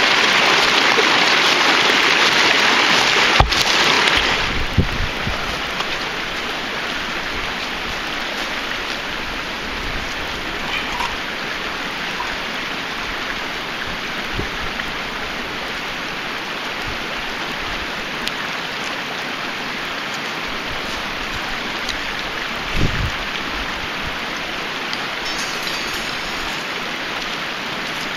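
A small creek splashing over rocks close by. About four seconds in it drops to a quieter, steady rush of running water. A soft thump comes about two-thirds of the way through.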